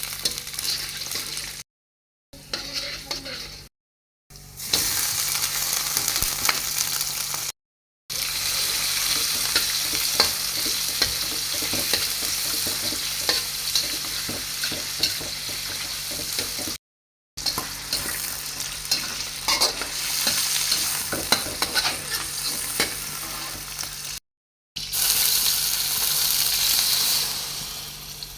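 Food sizzling and crackling in hot oil in a frying pan while it is stirred. The sound is cut off by several brief silences between edited clips.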